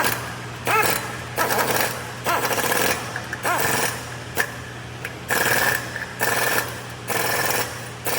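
A rattling power tool run in short bursts, about one a second, over a steady low hum.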